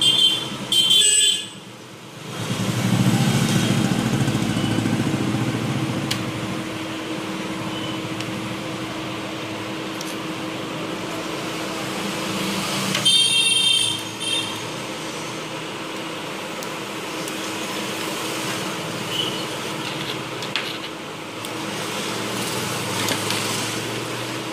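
Background road traffic with a steady hum, and a vehicle horn honking briefly at the start and again about halfway through.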